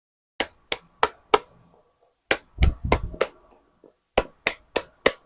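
A series of sharp taps on a hard surface, in three quick runs: four taps, a denser cluster with a duller thud, then four more taps, about three a second.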